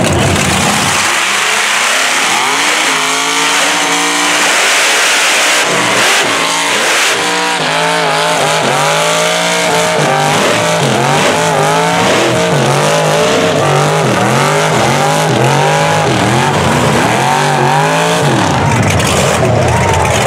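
Mega truck engines revving hard and loud under load in a tug of war, the pitch surging up and down again and again, over the hiss of spinning tyres.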